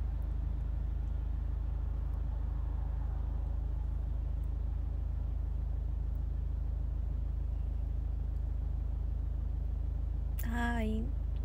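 Steady low rumble of a car's interior while riding in it, engine and road noise. Near the end a woman makes a short voiced sound, rising slightly in pitch.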